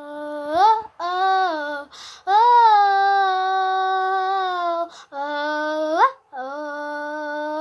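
A child singing alone, unaccompanied, in about five long held notes without clear words, several sliding upward at their ends; the longest note runs about two and a half seconds from a little past two seconds in.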